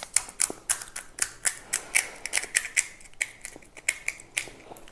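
Crisp fried fuchka (pani puri) shells crackling and crunching in a quick, irregular run of sharp cracks, a few each second.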